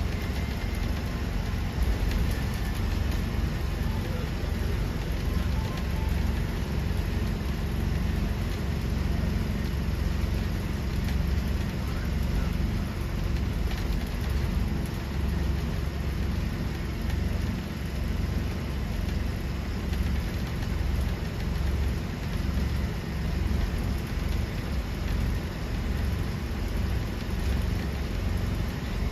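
Bus on the move: a steady low rumble of engine and road noise that holds even throughout, with no distinct events.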